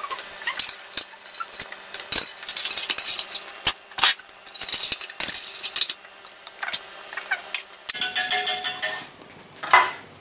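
Metal spatula and serving utensil scraping and clinking against a stainless steel baking pan as baked salmon steaks are lifted out, a run of sharp clinks and scrapes with a denser clatter about eight seconds in.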